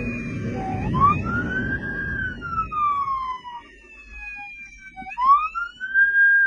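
Police motorcycle siren wailing in slow rising and falling sweeps, about two cycles. Engine and wind noise underneath fades out about three seconds in.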